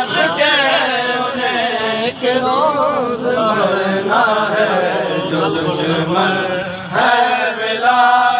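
Male voices chanting a noha, an Urdu mourning lament, in long melodic lines that rise and fall, with a brief break about seven seconds in.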